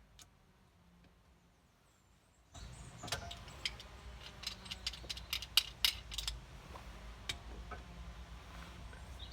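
About two and a half seconds of near silence, then irregular sharp metal clicks and clinks as locking pliers (mole grips) are clamped onto a seized brake caliper sliding pin and twisted gently to work it free.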